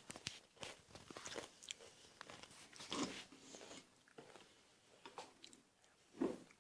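A person eating a spoonful of cereal: faint crunching and chewing with scattered small clicks.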